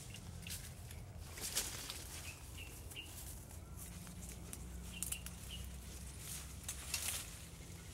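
Leafy branches and undergrowth rustling irregularly as a person walks through dense bushes, with a few short bird chirps.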